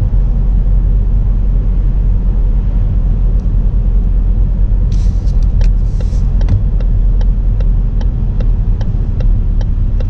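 Car cabin noise with a steady low engine and road rumble. About halfway through, a turn signal starts ticking evenly, about three ticks a second.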